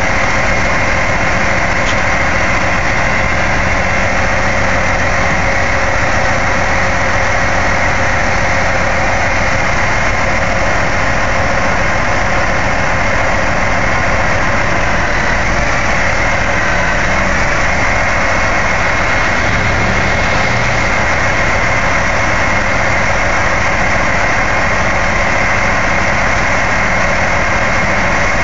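Heavy-duty wrecker's diesel engine running at a steady, unchanging speed, powering the crane boom's hydraulics as it holds and turns a suspended tank. The noise is loud and even throughout.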